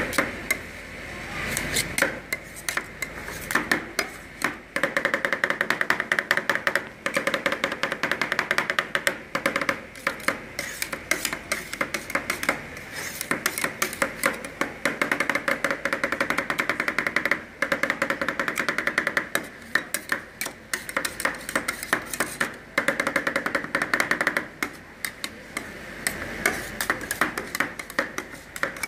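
Two metal spatulas chopping rapidly on the frozen steel pan of a rolled (fried) ice cream machine, many clacking strikes a second with short pauses, mixing fruit into the cream base as it freezes.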